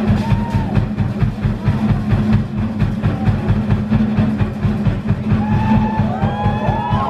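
Polynesian drumming for a luau performance: a fast, steady drum rhythm, with voices calling out in rising and falling glides near the end.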